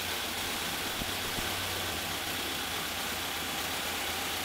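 Air-cooled VW-type flat-four engine fitted with CB Performance Gen4 EFI throttle bodies, idling steadily.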